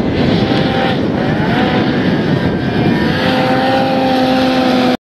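Ski-Doo 850 E-TEC two-stroke snowmobile engine, bored out to a 927 big bore, running hard under load as the sled climbs through deep snow. Its pitch rises briefly about a second in and holds steady from about three seconds in, then the sound cuts off abruptly near the end.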